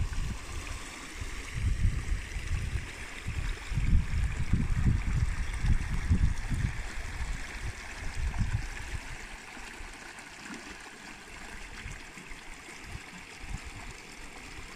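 Shallow mountain stream rushing and gurgling over rocks in a steady hiss, with irregular low gusts of wind buffeting the microphone that ease off after about nine seconds.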